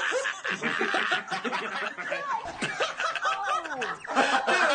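Four men laughing together, their snickers and chuckles overlapping without a break.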